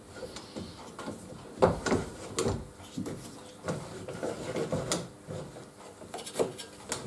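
Irregular metal clicks, knocks and light scraping from the sliding blade holder arm and saw blade being moved into place on a benchtop saw blade sharpening machine.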